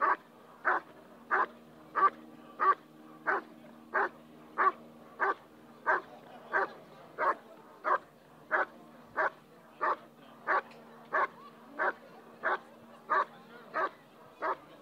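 German Shepherd working dog barking steadily and insistently at a motionless protection helper, holding him at bay, at an even pace of about three barks every two seconds.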